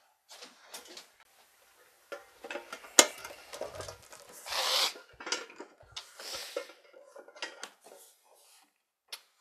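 A person moving about a small room: scattered rustling and light knocks, a sharp click about three seconds in, and a breathy rush of noise near the middle.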